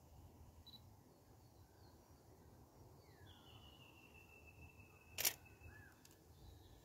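A single camera shutter click about five seconds in, from still photos being taken. Faint bird calls sound around it, including one long whistled note, over a low steady rumble.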